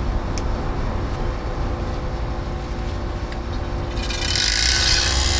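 A low steady hum with a couple of light clicks. About four seconds in, a refrigeration vacuum pump switches on and runs loud and steady, starting the evacuation of the air-conditioning system.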